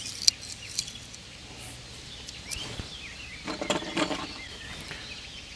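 Small handling clicks and soft rustles of fishing tackle as feedergum and fluorocarbon line are picked up and handled for rig tying, with a burst of rustling about three and a half seconds in. Faint bird chirps sound in the background.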